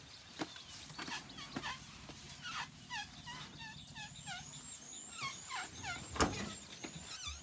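Birds calling: a run of short notes, each sweeping downward, repeated a few times a second, with high whistled notes above them and a low steady hum underneath. A sharp click about six seconds in is the loudest moment.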